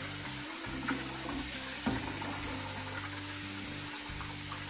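Kitchen faucet running into a bowl as basmati rice is rinsed by hand, under background music with long held notes.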